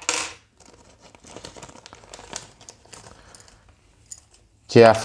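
Plastic packaging crinkling faintly and irregularly as small model-kit parts are handled and taken out of it.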